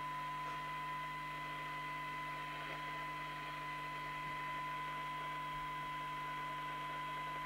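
Steady test tone from a signal generator, received and reproduced by a Harry Moss PT325 CB radio during receive alignment, with faint hiss and a low mains hum underneath. The tone holds steady while the receive coils are peaked on a weak signal.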